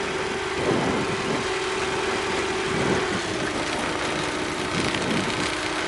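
Tecnam P92 Eaglet light aircraft's engine running at low ground power while taxiing, a steady hum whose pitch drops slightly about three seconds in.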